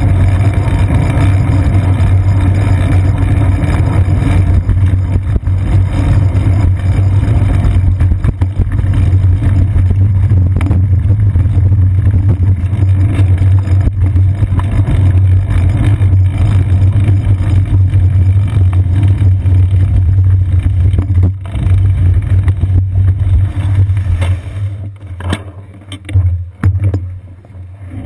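Steady low rumble of wind and road vibration picked up by a bicycle's seat-post-mounted GoPro Hero 2 in its housing while riding through city traffic. Near the end the rumble drops and turns uneven as the bike slows.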